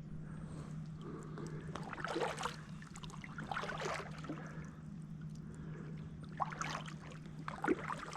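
Water splashing and trickling around a kayak in several short bursts, over a low steady hum.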